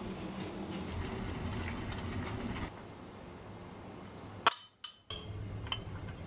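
Gas stove burner hissing steadily under a stainless steel pot. After a cut, there is one sharp clink of crockery, then light taps as soaked shiitake slices are tipped into a ceramic bowl.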